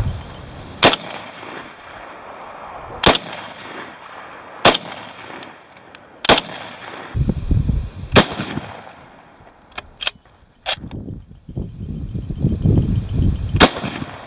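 Six rifle shots. The first four come from an SVT-40 semi-automatic rifle, about a second and a half to two seconds apart. The last two come from a .303 Lee Enfield bolt-action rifle, several seconds apart, with a few sharp metallic clicks of the bolt being worked between them.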